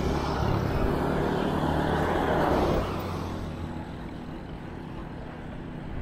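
A motor vehicle's engine and road noise. It is loudest about two and a half seconds in, drops off suddenly, then goes on quieter.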